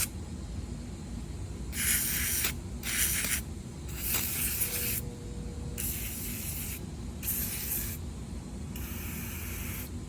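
Aerosol can of deep penetrating oil being sprayed in about six short hissing bursts, one after another with brief pauses between them.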